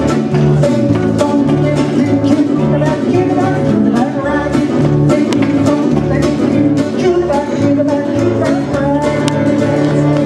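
Live country band playing an upbeat rag on guitars, with a steady alternating bass line and a woman singing lead.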